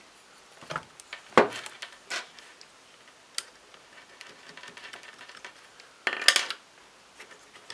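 Small clicks and knocks of hard plastic parts and cable connectors being handled inside an opened speaker dock, the sharpest about a second and a half in. A faint light scratching in the middle fits a pencil marking the cables, and a short rustling burst comes about six seconds in.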